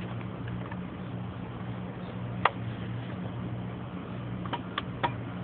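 Buick 455 V8 idling steadily, with a few light ticks. The owner traces a noise from the front of the engine to one of the belt and pulley setups (alternator or power-steering pump), not to a bearing in the motor.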